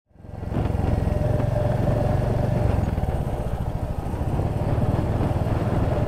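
Royal Enfield Hunter 350's single-cylinder engine running steadily while riding, heard from the rider's seat, fading in at the very start.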